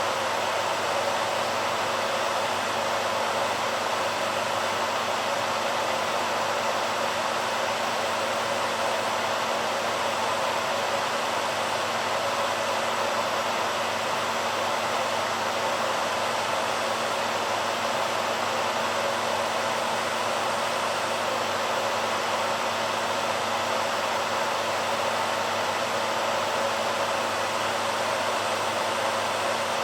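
BaByliss hairdryer running steadily: an even, unchanging rush of blown air with a few faint steady tones in it.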